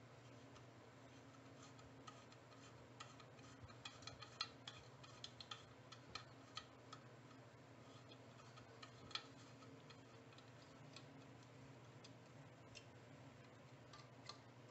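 Faint, irregular metallic clicks of a 5 mm Allen key being turned and re-seated in socket-head bolts as they thread into an aluminium engine cover. The clicks come thickest from about two to nine seconds in, with a few more near the end, over a low steady hum.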